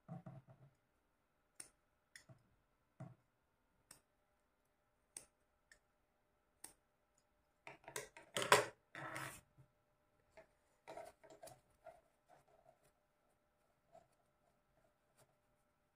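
Tailoring scissors snipping cotton fabric: quiet, scattered clicks of the blades, with a louder cluster of rustling and snipping about eight seconds in.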